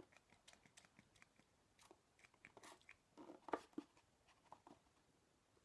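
Mostly near silence with faint clicks, and a few short, quiet spritzes from a finger-pump bottle of liquid acrylic art spray about halfway through.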